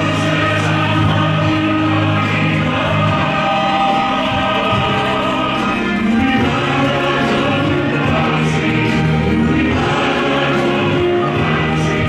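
Choral worship music: a choir singing over instrumental backing, with held bass notes underneath.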